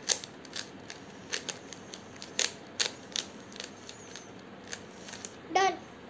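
3x3 Rubik's cube being turned by hand: a dozen or so irregular plastic clicks of the layers snapping round during the final moves of the solve. A short pitched squeak, the loudest sound, comes near the end.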